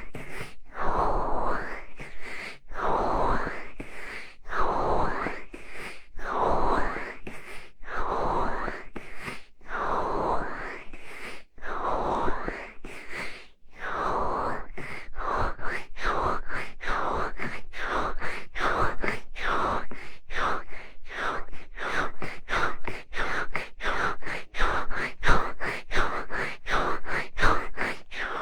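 ASMR ear cupping: hands repeatedly cupping and releasing over a binaural microphone's ears, giving muffled whooshing strokes whose pitch sweeps down and back up. The strokes come about every two seconds at first, then quicken to two or three a second about halfway through.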